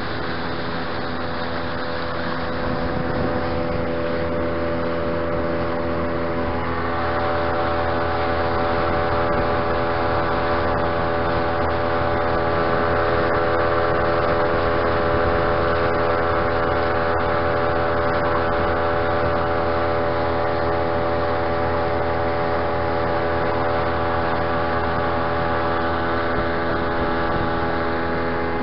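Tohatsu outboard motor driving an inflatable boat at speed. Its note rises in pitch and level a few seconds in, then holds steady.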